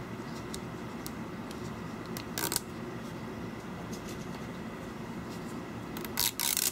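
Adhesive backing strip being peeled off a replacement iPad digitizer's frame: a short crackling rip about two and a half seconds in and a longer, louder one near the end, with faint handling clicks between.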